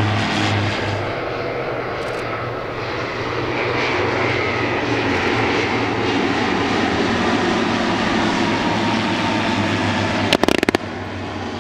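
A fixed-wing airplane's engine droning steadily as it flies a display. About ten seconds in comes a short burst of loud, sharp cracks.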